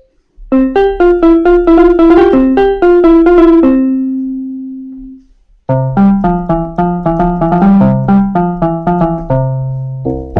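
Kawai FS660 portable keyboard playing a melody on a built-in preset voice with a piano-like tone. A quick run of notes ends on a long held note that fades away; after a short pause about five seconds in, a second, lower-pitched phrase of notes follows.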